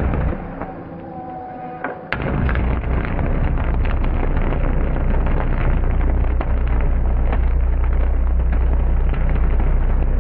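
Electric arcs drawn at the contacts of a high-voltage substation switch on all three phases. They strike suddenly about two seconds in and keep burning as a loud, continuous buzz with a deep hum and sharp crackles throughout.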